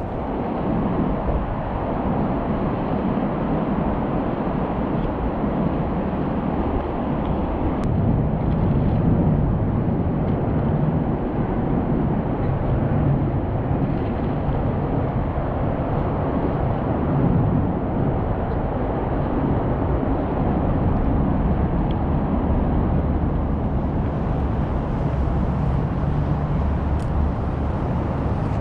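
Steady, fairly loud outdoor rumble, heaviest in the low end and wavering unevenly, with no distinct events.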